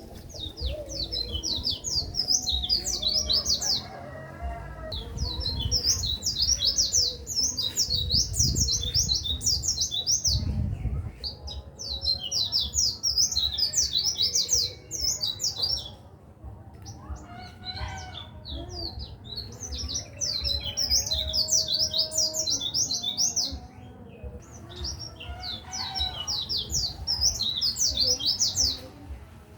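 White-eye (pleci) singing in rapid, high chirping phrases: five bursts of a few seconds each, separated by short pauses. It is a masteran song, the kind played to tutor caged songbirds.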